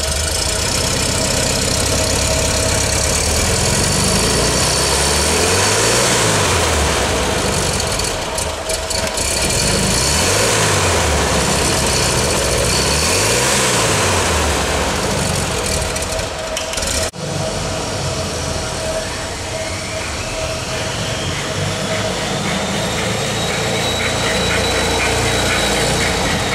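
1976 Volkswagen Super Beetle's 1600 cc air-cooled flat-four engine running, blipped three times so that it rises and falls in pitch. After a sudden break about two-thirds of the way in, it runs on steadily with a faint whine that rises and falls.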